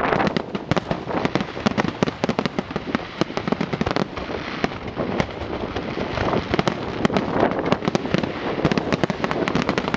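Fireworks going off in a dense, rapid crackle of many sharp pops, with louder bangs standing out here and there.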